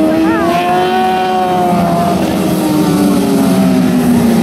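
Several 600cc micro sprint cars racing together, their motorcycle engines making overlapping notes at high revs. One engine note drifts lower over the second half as a car backs off.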